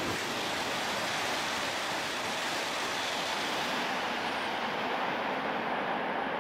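Steady rushing noise of a Tohoku Shinkansen train approaching at high speed.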